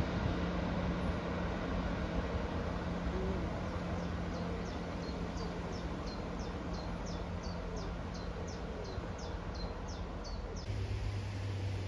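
Northern Class 158 and Class 156 diesel multiple units pulling away, their engine drone fading slowly. From about four seconds in, a small bird sings a quick run of repeated high, falling notes.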